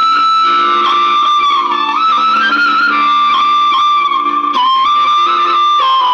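Instrumental music with a held, flute-like melody playing loud through a small Bluetooth speaker with very little bass. The speaker is working again after its shorted driver and 2030 amplifier IC were replaced.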